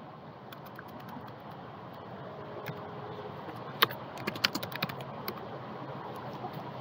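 Computer keyboard keys clicking: one click a little under four seconds in, then a quick run of about half a dozen keystrokes, over a steady low background hiss.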